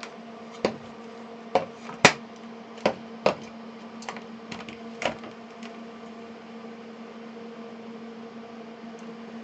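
Light clicks and taps of small tools and parts being handled on a workbench, about eight in the first five seconds with the loudest about two seconds in, over a steady low hum.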